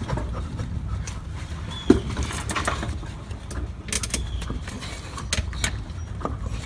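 Scattered light metallic clicks and knocks of hand work on a Nissan 240SX's rear axle and differential, as the axle is pressed in and rotated off the diff's output shaft. There is a sharper knock about two seconds in and a cluster of clicks later on, over a low steady hum.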